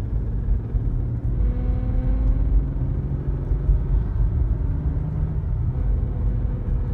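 2014 BMW 335i (F30) with its turbocharged inline-six running, heard as a steady low rumble with faint engine tones that shift slightly in pitch. No separate rattle stands out.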